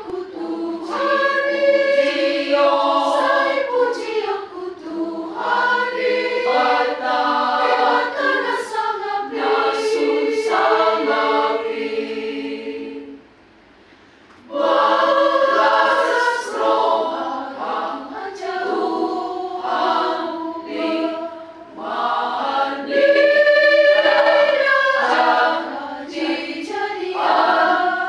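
Choir singing in rehearsal. The voices break off for a moment about halfway through, then start singing again.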